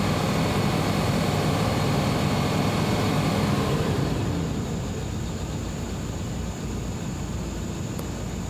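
2012 Chevy Colorado pickup engine running at a rough idle, a steady low rumble that drops to a quieter level about four seconds in. The truck is blowing blue smoke and smells of gasoline.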